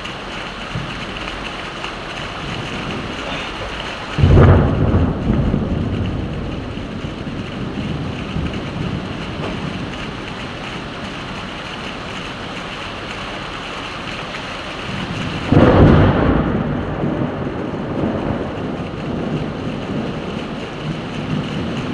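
Heavy rain falling steadily, with two claps of thunder, one about four seconds in and one about a second and a half before the end of the first fifteen seconds. Each starts sharply and rumbles away over a few seconds.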